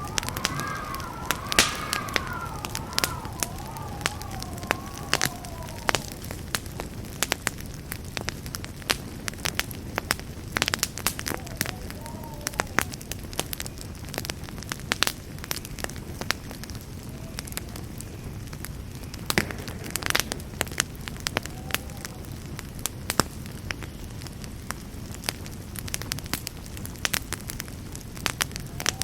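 Campfire burning with a steady low rush and frequent sharp crackles and pops. A faint wavering whistle rises and falls during the first few seconds and comes back briefly a few times later.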